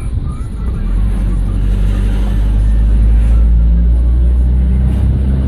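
Heavy vehicle or road machinery engine running close by, a steady low drone that grows louder about a second in and then holds.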